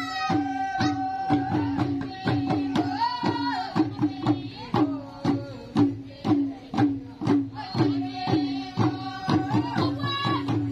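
Traditional Papuan dance music: a drum beating a steady rhythm of about three strokes a second, each stroke ringing at one pitch, with voices singing long held notes over it.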